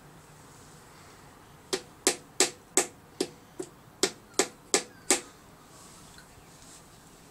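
A hammer striking a nail into wood: ten sharp, evenly paced blows at about three a second, starting a little under two seconds in and stopping about five seconds in.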